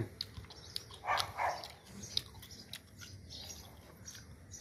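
A dog barking twice in quick succession, with a few light clicks around it.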